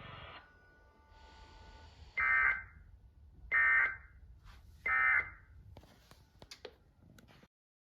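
Emergency Alert System end-of-message data bursts: three short, buzzy digital tone bursts about a second and a half apart, marking the end of the warning broadcast. A few faint clicks follow before the audio cuts off.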